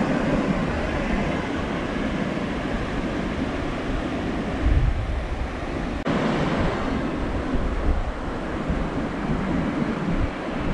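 Ocean surf washing up onto a sandy beach, a steady rush of breaking and receding waves, with gusts of wind buffeting the microphone.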